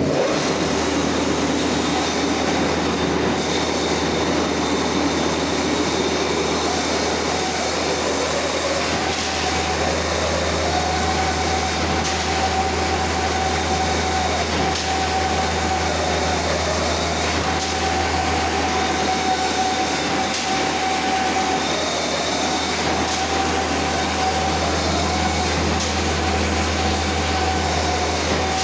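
Automatic wire straightening-and-cutting machine (GTQ3/6D9, for 3–6 mm wire) running: a steady loud mechanical noise over a low drone. From about ten seconds in, a mid-pitched whine breaks off and starts again every few seconds.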